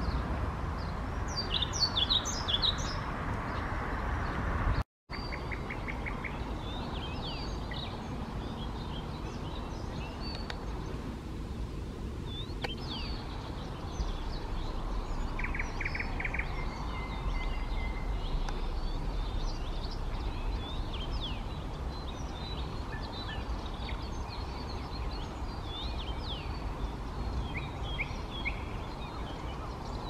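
Songbirds singing and chirping, many short high notes and a few rapid trills, over a steady rush of wind. The sound cuts out for a split second about five seconds in.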